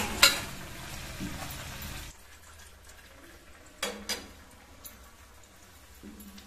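Stuffed radish puri sizzling as it deep-fries in hot oil in an iron kadhai, with two sharp clinks of the slotted spoon on the pan at the start. The sizzle cuts off abruptly about two seconds in, and two knocks follow near the middle.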